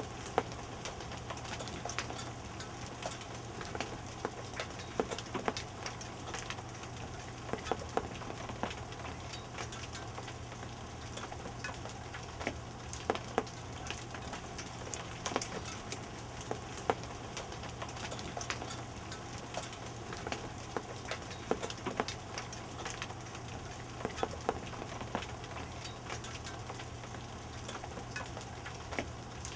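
Hail falling: a steady hiss with scattered, irregular sharp ticks of hailstones striking the ground and patio furniture.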